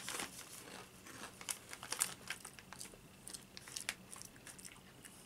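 Plastic snack packets crinkling as they are handled, mixed with crunchy chewing of a dry savoury snack: a string of irregular sharp crackles.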